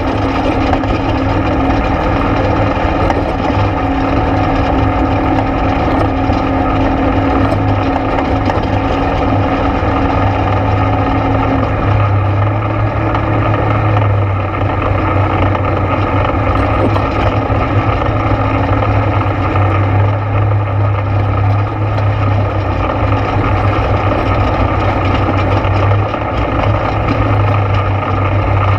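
ATV engine running steadily while riding a trail, its pitch shifting slightly about halfway through.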